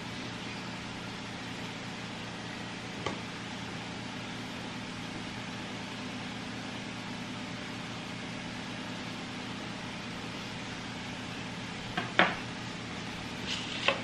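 A steady low hum fills the kitchen. A soft click comes about three seconds in, and a few sharper knocks and clinks near the end as the sliced banana halves and the knife are set down on and beside a ceramic plate.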